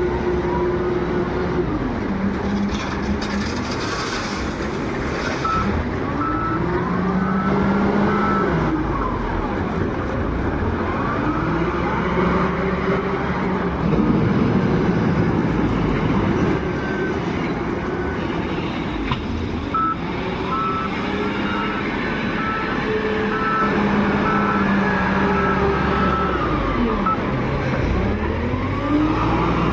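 SDLG wheel loader's diesel engine revving up and falling back every few seconds as it works a load of stone onto a truck. A reversing alarm sounds in two runs of evenly spaced beeps, a few seconds in and again past the middle.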